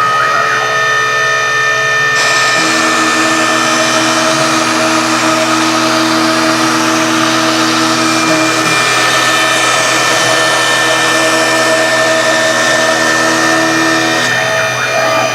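CNC router cutting betopan (cement-bonded particleboard): a loud, steady machine whine with several held tones over a noisy hiss, the tones shifting in pitch about two seconds in and again near the end.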